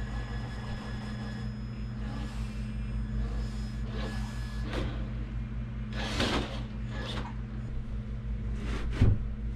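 Traxxas TRX4 RC rock crawler's electric motor and drivetrain whirring steadily while it climbs a slick quartz slab, with repeated short scrapes as its tyres scrabble and slip on the stone, and a sharp knock near the end.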